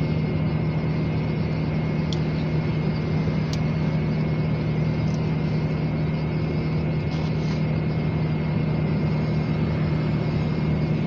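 Steady low hum of an idling car, heard from inside its cabin. Two faint clicks sound about two and three and a half seconds in.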